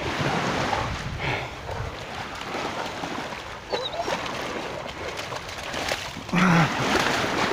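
Shallow surf washing and splashing as a dog wades through it, carrying a large stick. A brief low voiced sound comes a little after six seconds.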